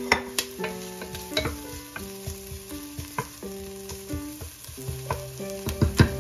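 Wooden spoon stirring chopped onions frying in a stainless steel pot, with a faint sizzle and sharp knocks and scrapes of the spoon against the pot, the loudest few knocks near the end.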